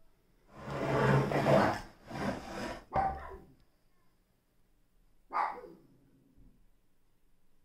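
Dog barking: a run of barks in the first few seconds, then one more bark about five seconds in.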